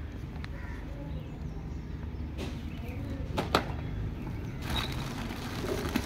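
Thin plastic bag rustling and crinkling from a little before five seconds in, as a hand rummages inside it, after a few sharp clicks from handling packaging near the middle, over a steady low rumble.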